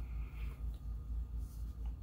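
Room tone: a low hum that pulses about four times a second, with a faint brief hiss near the start.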